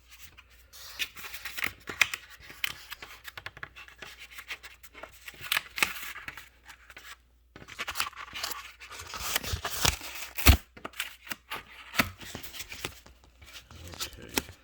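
Protective cardboard being pulled and torn off a solar panel: irregular ripping, scraping and rustling of cardboard. It pauses briefly about halfway, and there is one loud knock about two-thirds of the way through.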